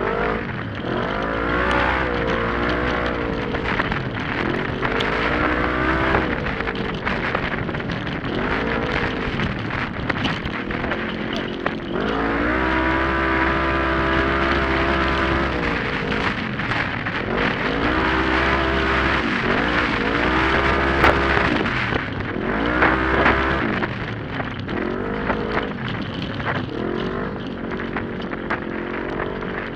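Open 1000 class UTV engine racing hard, its revs climbing and dropping every couple of seconds as the driver accelerates and lets off, held high for about four seconds midway. Scattered knocks come from the machine jolting over the rough trail.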